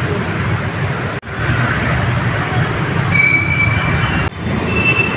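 Loud passing train: a steady rumble of wheels on rail with short high-pitched wheel squeals about three seconds in and again near the end.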